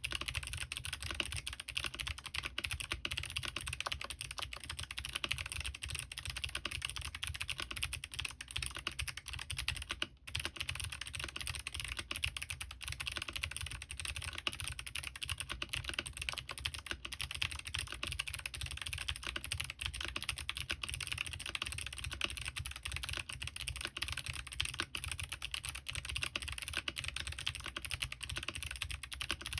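Continuous fast typing on a mechanical keyboard with clicky Kailh Box Jade switches, lubed with Krytox 205g0 and 105, under SP DCS keycaps on an aluminium plate with no foam. The typing is a dense stream of keystroke clicks, with a brief pause about ten seconds in.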